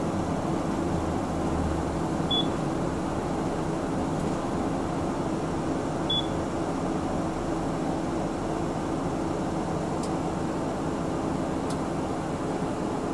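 Steady engine hum and road noise inside a city bus as it slows and comes to a stop, with a short high beep twice, a few seconds apart.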